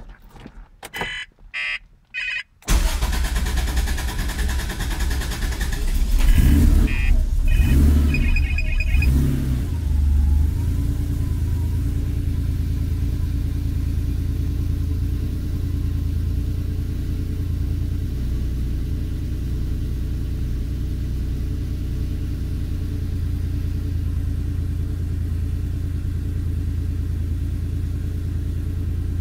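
1986 Porsche 911 Carrera 3.2's air-cooled flat-six being started warm: the starter cranks for several seconds before the engine catches about six seconds in, revs briefly, then settles into a steady idle. The long crank on a warm restart is the fault the owner is showing. A few short clicks and tones come just before the cranking begins.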